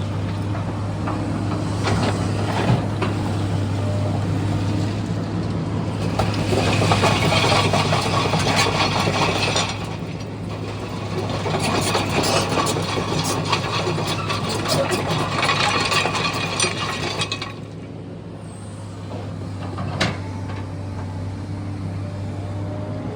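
SANY excavator's diesel engine running with a steady low hum. Twice in the middle it gets louder under load for several seconds, with clanking and clatter, then drops back quieter; a single knock comes near the end.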